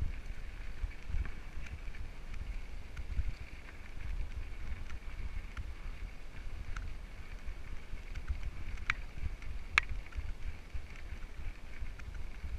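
Mountain bike rolling along a dirt singletrack trail, with wind rumbling on the microphone and two sharp clicks about three-quarters of the way through.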